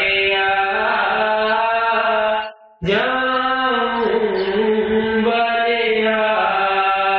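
A man's voice chanting a devotional hymn line in long, drawn-out notes that glide slowly up and down, with a short break about two and a half seconds in.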